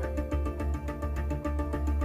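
Background music from the online auction site, with held tones, a strong bass and a steady beat.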